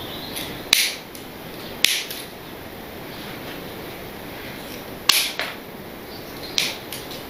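Small metal pliers being handled: four short, sharp clicks spread over several seconds, over a steady low hiss.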